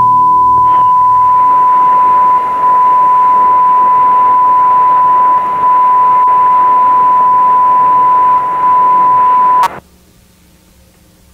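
Steady 1 kHz line-up tone of a TV closedown on colour bars, over an even hiss, cutting off suddenly near the end and leaving only faint hiss and hum.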